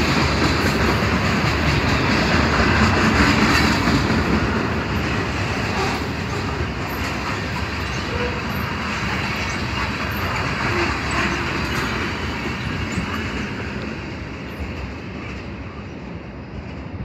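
Freight train cars rolling past: a steady rumble and clatter of steel wheels on rail that grows gradually fainter over the second half as the end of the train goes by.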